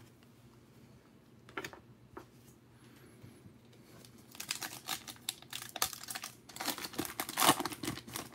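Foil wrapper of a 2020 Panini Prizm football hobby pack being torn open by hand, crinkling and ripping from about four seconds in and loudest near the end. There is one light click about a second and a half in.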